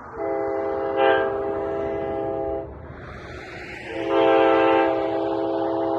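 Nathan K5HA five-chime train horn sounding two long blasts, a chord of several steady notes, the second starting about four seconds in.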